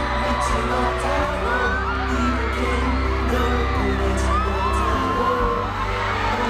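Loud pop music over a concert sound system, with a crowd of fans screaming and cheering over it throughout in many short high shrieks.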